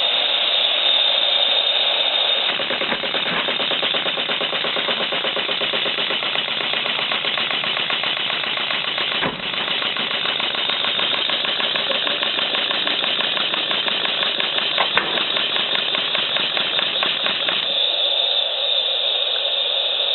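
Model double-cylinder slide-valve marine engine running fast, with a rapid even beat over a steady hiss. The beat starts about two seconds in and stops a couple of seconds before the end, leaving only the hiss.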